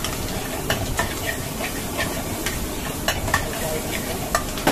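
Chopped onion, capsicum and green chilli sizzling in a wok over a high gas flame while a metal ladle stirs and scrapes, clinking sharply against the wok about eight times.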